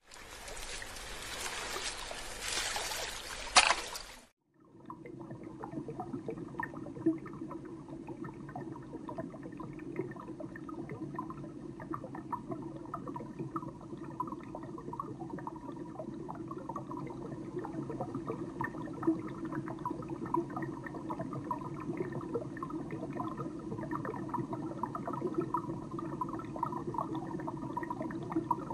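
A loud rush of water with a sharp splash at its end, cutting off about four seconds in. It gives way to a steady, muffled underwater sound of continual small bubbling crackles: the sound of being submerged inside a water-filled tube.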